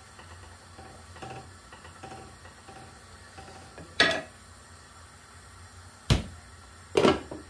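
Three sharp clatters of kitchen utensils and cookware, about four, six and seven seconds in.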